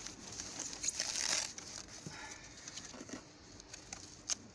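Packing material crinkling and rustling as hands pull the wrapping off a folded electric bike inside a cardboard box, loudest about a second in, with a few light clicks near the end.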